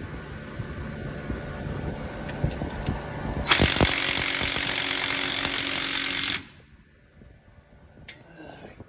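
Cordless impact tool with a socket extension running hard on the pinion nut of a quick-change rear end for about three seconds. It starts suddenly with a few knocks, then gives a loud, even rattle, then cuts off.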